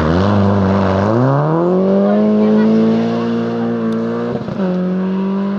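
Rally car engine accelerating hard, climbing in pitch over about a second and then held at high revs. There is a short break in the engine note about four and a half seconds in, then it pulls on steadily.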